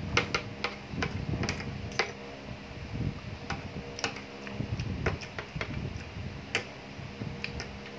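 Metal spoon and fork clinking and scraping on a ceramic plate of pasta, in irregular sharp clicks, with close-miked chewing between them.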